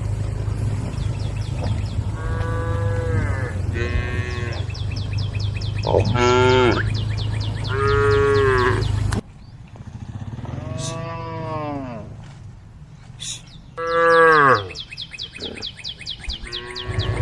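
Cows mooing, about seven long calls one after another, several with a rising-then-falling pitch, as cows call to the herd. A steady low hum runs under the first half and cuts off suddenly about nine seconds in.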